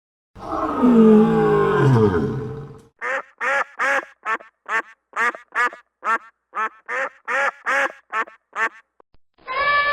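A deep animal roar, falling in pitch, for about the first three seconds, then a duck quacking: a long even run of short quacks, two or three a second.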